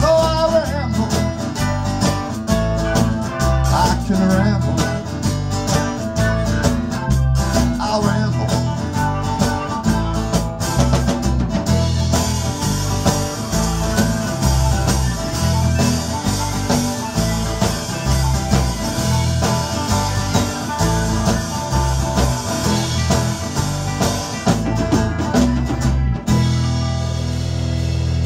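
Live blues-rock band playing: electric and acoustic guitars over a drum kit. About two seconds before the end, the drumming stops and a chord is left ringing.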